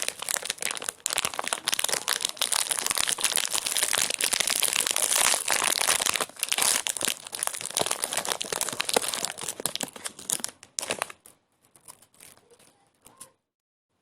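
Crinkling and crumpling, a dense crackle for about ten seconds that thins out to scattered crackles, with a brief dead gap just before the end.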